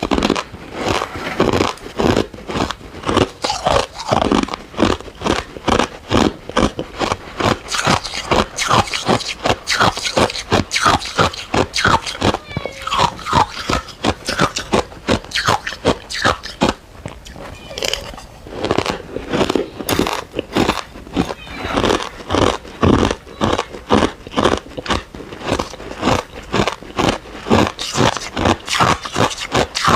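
Close-miked chewing of crunchy ice cubes: a rapid, unbroken run of crisp crunches, several a second.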